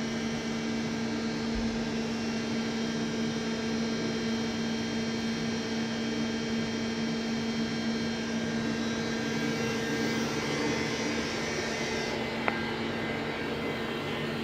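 XYZ Mini Turn 190 CNC lathe running under power: a steady machine hum with a strong low tone. The higher hiss drops away about twelve seconds in, and there is a single sharp click shortly after.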